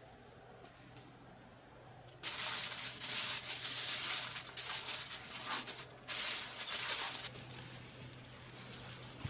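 Two bursts of crackly hissing noise, starting and stopping abruptly: the first about two seconds in, lasting about three and a half seconds, the second a moment later, lasting about a second.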